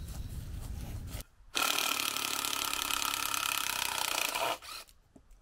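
Cordless drill running into wood for about three seconds, a steady loud motor whine that stops suddenly, after about a second of low rumble.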